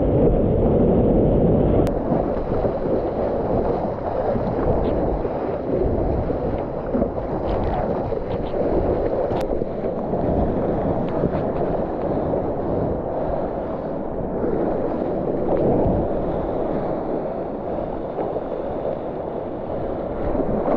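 Surf and wind rushing against a GoPro in its waterproof housing: a steady, muffled roar of moving water.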